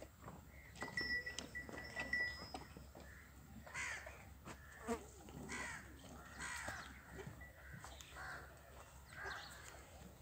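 Birds calling: a run of short, repeated calls from about four seconds in, faint against the farmyard background.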